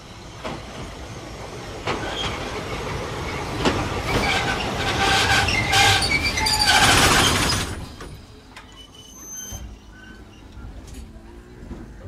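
Fukui Railway Nanetsu Line train running on the rails close by, growing louder to a peak with a high squeal from the wheels, then dropping away sharply about two thirds of the way through.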